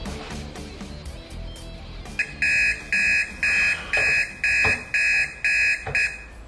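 Electronic alarm clock beeping, about two even beeps a second, starting about two seconds in and stopping after some eight beeps, over quiet background music.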